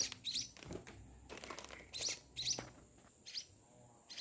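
A week-old munia chick chirping: a series of short, high calls, roughly one or two a second.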